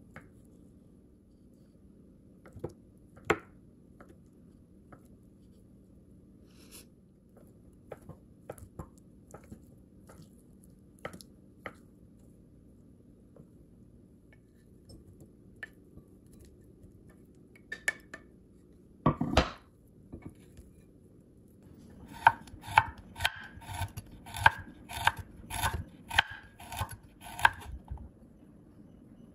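A kitchen knife cutting through soft century egg onto a wooden cutting board, with scattered single knocks of the blade on the board and one louder, longer scrape about two-thirds of the way in. Near the end, a santoku chops quickly and evenly on a bamboo board, about three strokes a second for some six seconds.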